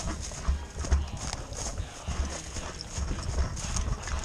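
Running footsteps on dry grass and fallen leaves: low thuds from each footfall, about two a second, jolting the worn camera, with crackling leaves and rattling kit.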